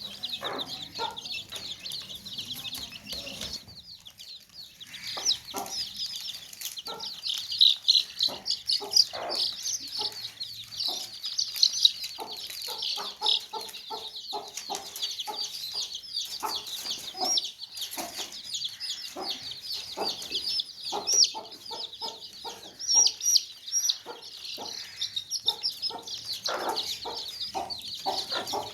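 A group of baby chicks chirping nonstop: many overlapping high, short peeps. Short lower clucking calls are mixed in.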